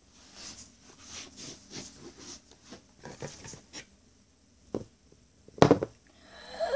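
Soft rubbing and brushing of a small plastic toy figure being handled over carpet, in short strokes about three a second. Then a light knock and, about five and a half seconds in, a sharp thump, the loudest sound, as the figure drops onto the carpet.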